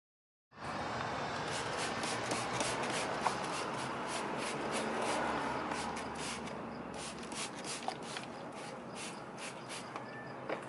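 A cloth wiping back and forth over a painted car fender in quick repeated strokes, a few a second, clearing off cutting-compound residue after machine buffing.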